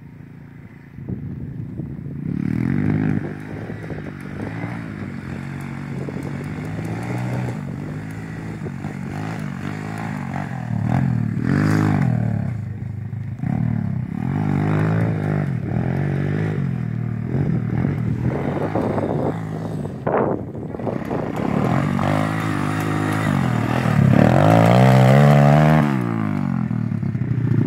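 Pit bike engine revving up and down over and over as it rides the dirt track, the pitch rising and falling with each throttle change. It grows loudest near the end as the bike passes close by.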